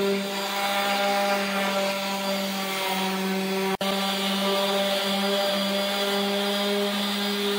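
Electric random orbital sander running steadily against plywood, smoothing the freshly cut edges, with a steady motor hum. It cuts out for an instant about four seconds in.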